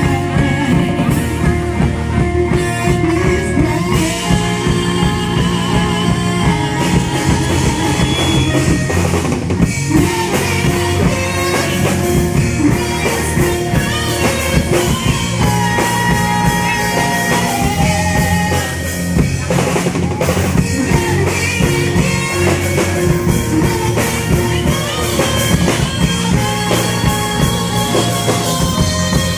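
Rock music with a full drum kit over guitars.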